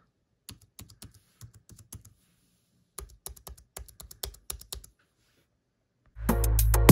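Logitech MX Keys keyboard's low-profile scissor-switch keys clicking under a finger, the Enter key tapped repeatedly in two quick runs. About six seconds in, loud music with deep bass begins.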